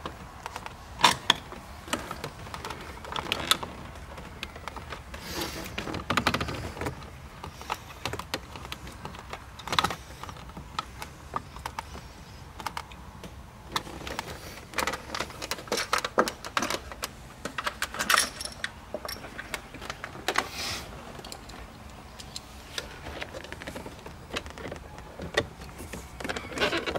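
Irregular clicks, taps and rattles of a screwdriver and plastic interior trim as a Torx screw is driven in and console trim pieces are handled and pressed back into place.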